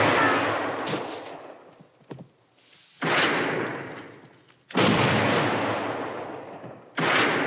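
Four loud gunshots, shotgun blasts, each trailing off in a long echo over a second or two.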